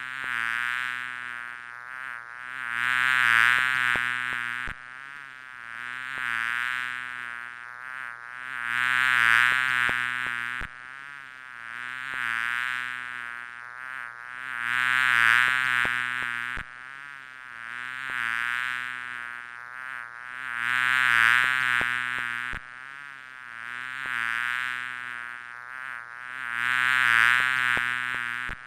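Bees buzzing: a wavering, many-toned buzz that swells loud and fades again. It is a stretch of about six seconds repeated over and over, each repeat starting with an abrupt cut.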